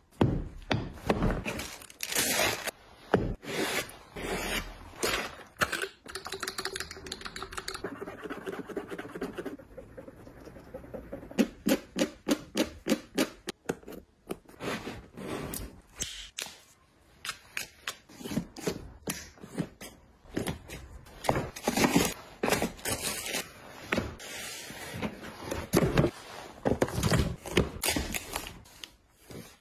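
Handling sounds of gloved hands working with a sneaker and a cardboard shipping box: repeated taps, clicks and scrapes, with a fast run of clicks around the middle. Near the end, packing tape is smoothed down onto the box.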